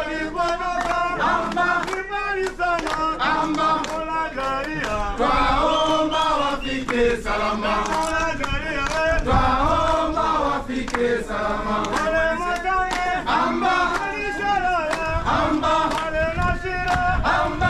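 A group of men singing a song together in chorus.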